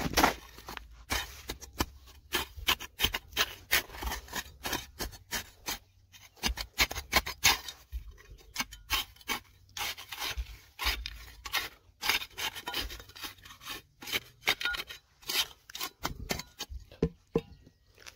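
Rapid, irregular scraping and scratching strokes of a hand digging tool working through soil and stone, several a second, with short pauses about six and fourteen seconds in.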